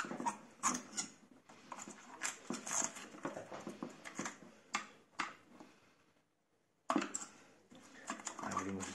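Irregular small clicks, taps and rattles of a screwdriver and fingers working on a flat-screen TV's plastic frame, its wiring and connectors. The clicking breaks off for under a second about six seconds in, then resumes.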